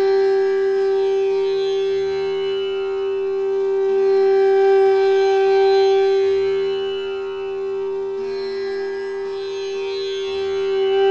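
Instrumental background music: one long held note over a steady drone.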